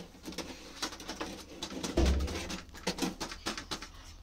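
Clicks and crackles of crisp flatbread being picked up and torn on a metal tray, with a dull thump about two seconds in and a few short low hums.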